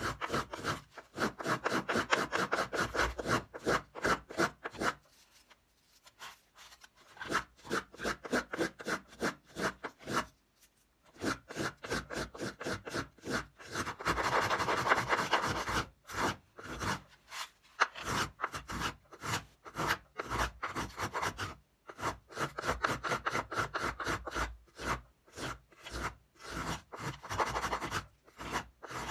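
Small violin-maker's finger plane shaving the spruce top of an old violin: quick short strokes, each a dry scraping hiss as the blade lifts a thin curl. The strokes come in runs with short pauses between them.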